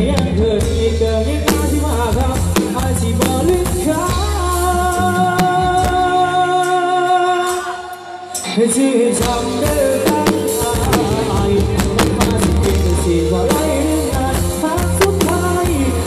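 Live band music played loud through a large outdoor concert sound system, with heavy bass, drums and a singer, recorded on a phone. About four seconds in the bass and drums drop out, leaving held notes for a few seconds, and the full band comes back in about eight and a half seconds in.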